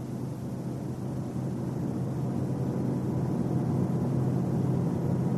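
Car driving at highway speed, heard as steady road and drivetrain noise with a low drone that grows gradually louder.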